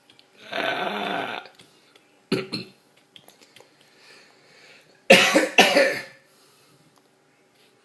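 A baby making raspy, cough-like throaty noises: a long breathy rasp about half a second in, a short one after two seconds, and two louder ones in quick succession about five seconds in.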